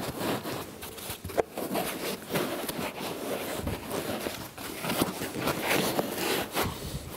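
Foam packing blocks rubbing and squeaking as they are pushed into a foam-lined cardboard box, with irregular scuffs and small knocks throughout.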